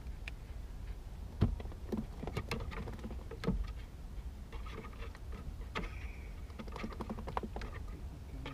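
Irregular light clicks, taps and knocks of fishing tackle being handled at a bucket on a boat's deck, with two louder knocks about one and a half and three and a half seconds in, over a steady low rumble.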